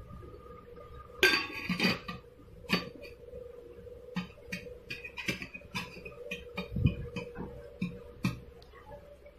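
Lid of a Futura hard-anodised aluminium handi being fitted onto the pot and handled: a louder rattle about a second in, then a run of light clinks and knocks of lid against rim.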